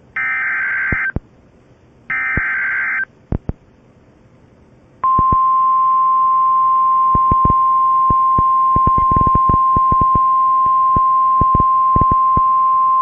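NOAA Weather Radio SAME header: three short, harsh data bursts about a second apart. About two seconds later the steady 1050 Hz warning alarm tone comes on and holds, crackling with static clicks. This tone sequence marks the start of a new warning broadcast.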